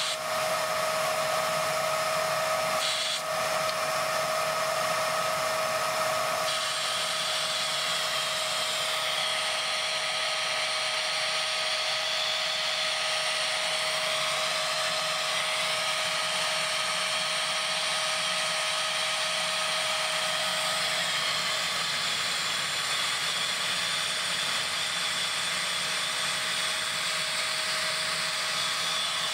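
Siemens Green Power Edition vacuum cleaner motor running with its suction completely blocked by a vacuum gauge, screaming in a steady high whine over a rushing hiss. The choked airflow holds the motor at redline. Its tone shifts slightly a few seconds in.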